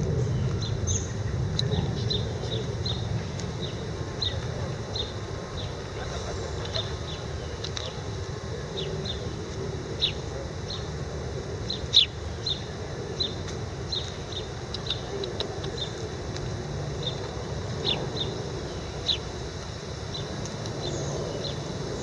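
Small birds chirping: short, high single notes repeated irregularly, about two a second, over a low steady rumble.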